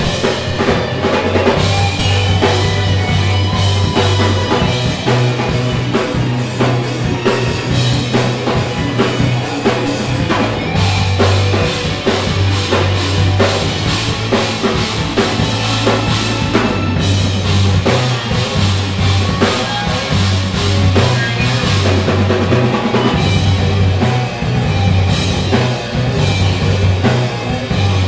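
Live instrumental rock band playing: a drum kit with steady bass drum, snare and cymbals under keyboards and a pulsing bass line.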